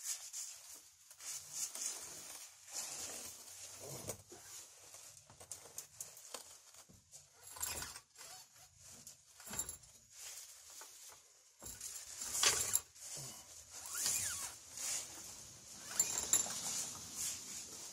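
Irregular metal scraping, clinking and shuffling as a truck leaf spring pack is moved and fed into position on a floor jack, with a few louder scrapes later on.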